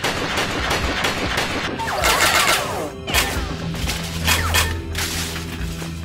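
Cartoon action sound effects: a rapid volley of shot and impact sounds with falling whooshes, over background music that steadies toward the end.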